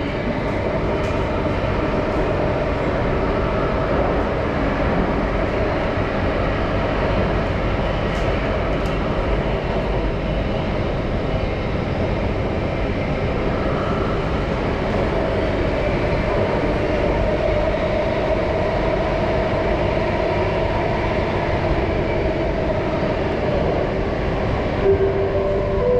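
Singapore MRT train running between stations, heard from inside the car: a steady rumble of wheels on rail with a faint whine over it.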